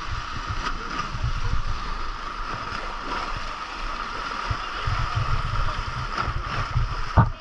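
Sea surf surging and washing over rocky shore steps, an even rushing hiss, with irregular low buffeting rumbles on the microphone and a sharp knock near the end.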